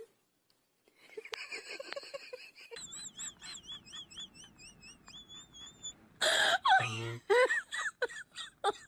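A person laughing in high, wheezy giggles, breaking into louder bursts of laughter over the last few seconds.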